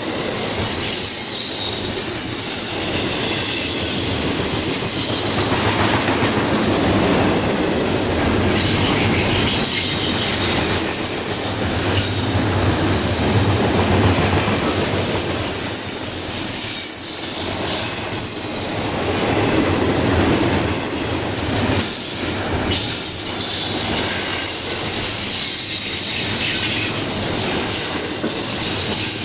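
Long train of double-stack intermodal container cars rolling past at speed: a steady rumble of wheels on rail with clacking over the joints and high-pitched wheel squeal.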